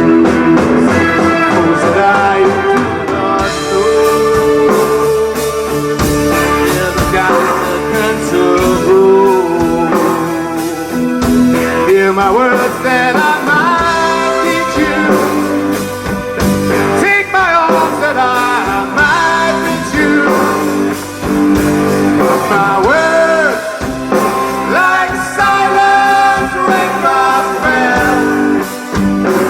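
Music: a rock-style arrangement with guitar under a gliding melody line that keeps going steadily.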